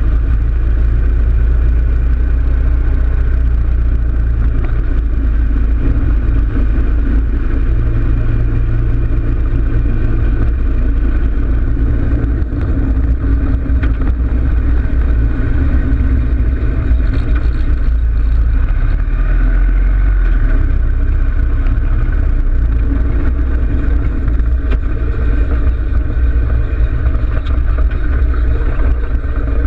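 Harley-Davidson Road King Classic's V-twin engine running as the bike cruises at low road speed, its note shifting a little with the throttle, heard from a camera mounted on the front of the bike.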